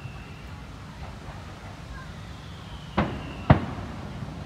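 Two sharp firework bangs about half a second apart, about three seconds in, the second one louder.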